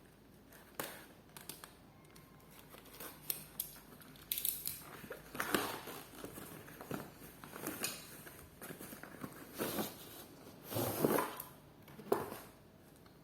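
Hands handling a solar light and its packaging: irregular crinkling and rustling with scattered clicks and small knocks, louder in a few bursts, the loudest near the end.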